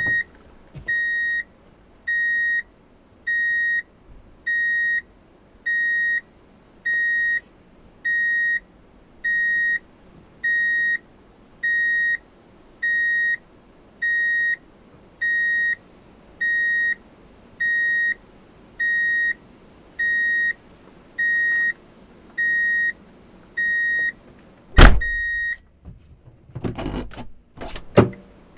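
Vehicle reverse-gear warning beeper sounding a steady run of short single-pitch beeps, about one every one and a half seconds. Near the end the beeping stops with a loud click, followed by a few knocks and a thump.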